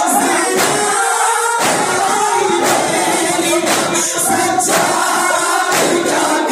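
Group of men chanting a noha in unison behind a lead reciter, with rhythmic chest-beating (matam) hand strikes landing about once a second.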